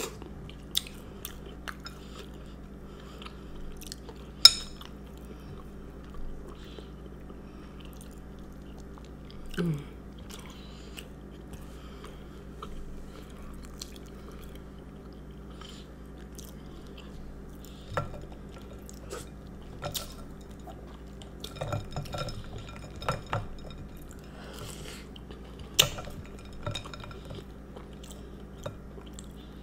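A spoon clinking against a bowl of milk and ice in scattered single strikes, with quiet chewing in between. The loudest, ringing clink comes about four seconds in, and a quick cluster of clinks follows about three-quarters of the way through.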